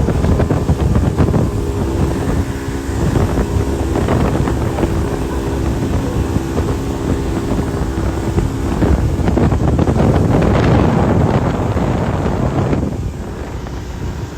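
1985 Yamaha 50 hp two-stroke outboard running steadily at speed on a small aluminium boat, with wind buffeting the microphone. The level drops near the end.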